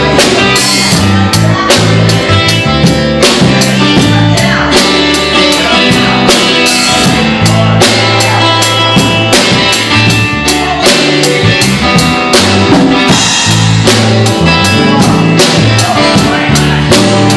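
A rock band playing live and loud: a drum kit keeping a steady beat over electric guitar and bass.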